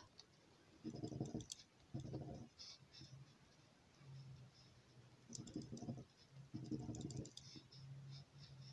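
Coin scratching the latex off a lottery scratchcard: faint scraping clicks in short spells. A few low muffled sounds come in between, and a faint low hum from about four seconds in.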